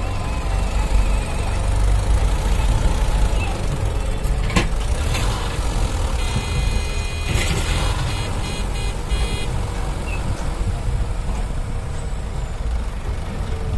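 Heavy diesel engine running steadily, with a brief knock about four and a half seconds in. A high steady tone joins it for about three seconds in the middle.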